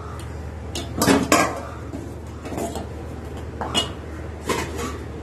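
Stainless steel ladle clinking and scraping against a stainless steel pot of payasam, about five metallic knocks, the loudest pair about a second in.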